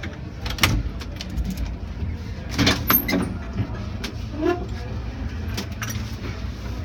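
Datsun 280Z straight-six idling with a steady low rumble, while irregular clicks and clunks of handling sound around it, a few near the start, a cluster about three seconds in and two near the end.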